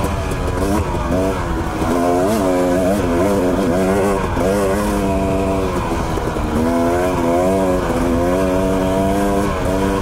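Dirt bike engine running on the trail, its pitch rising and falling again and again with the throttle, with short drops off the throttle between steadier stretches.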